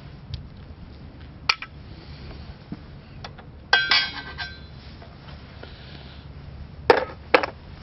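Loose steel hardware clinking and clattering on metal: a single clink early, a ringing clatter about four seconds in, and two sharp metallic knocks near the end.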